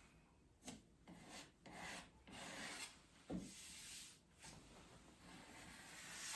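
Faint, irregular rubbing strokes on a wooden door, hand-worked across the surface, with one soft knock a little past the middle.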